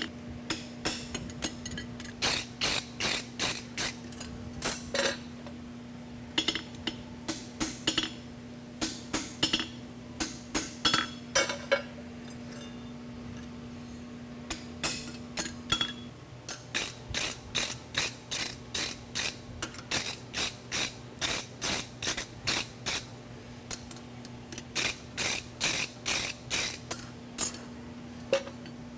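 Farrier's hand hammer striking a steel horseshoe on an anvil in runs of short, sharp blows, about two or three a second, with a few pauses: the last finishing stage, flattening the heel caulk and wedge and truing the edges by the nail holes. A steady low hum runs underneath.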